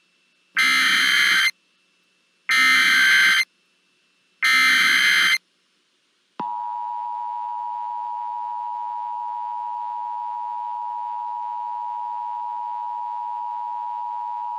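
Emergency Alert System header: three short, screeching data bursts of about a second each, evenly spaced, followed by the EAS two-tone attention signal, a steady buzzing tone held for about eight seconds that cuts off at the end.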